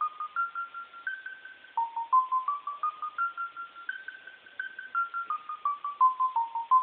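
A simple electronic beeping tune: single plain notes, a few a second, climbing step by step up a short scale, dropping back, climbing again and then stepping down.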